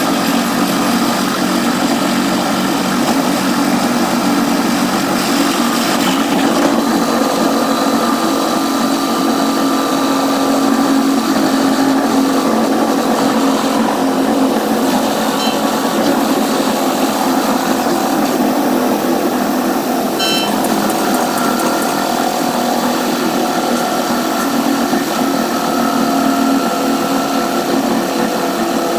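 Caltrain commuter train running at speed, heard from the gallery cab car: a steady, unbroken mix of wheel-on-rail running noise and diesel locomotive, sped up fourfold so it sounds high and whirring. Two short high chirps come about halfway through.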